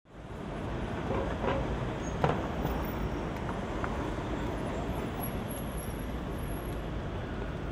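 City street traffic: the steady noise of passing cars, a taxi going by close. The sound fades in at the start, and there is one sharp knock a little over two seconds in.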